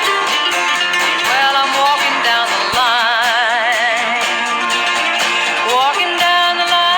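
Music: strummed acoustic guitar with a singing voice, which slides up into a long note held with vibrato about three seconds in.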